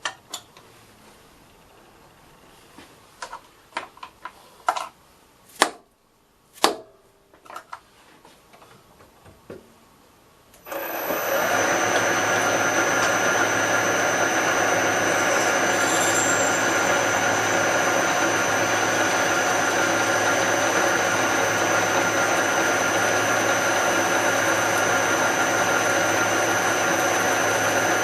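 Scattered light clicks and knocks of metal parts being handled, then about ten seconds in a machine spindle motor switches on and runs steadily with a hum and a high whine, drilling a thick stainless steel vise part.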